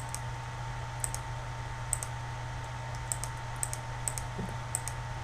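Computer mouse clicking: sharp, quick paired clicks, about seven of them, spaced half a second to a second apart, over a steady low hum.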